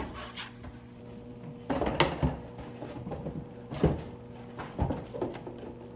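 Cardboard box and packaging being handled: rustling, with several knocks and thuds as the flat plastic cutting mats are pulled out of the box.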